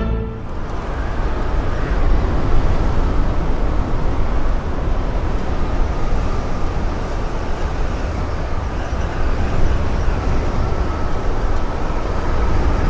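A loud, steady rumbling noise-soundscape played over the many loudspeakers of a multi-speaker sound installation, machine- or vehicle-like, with a faint steady tone coming in during the second half.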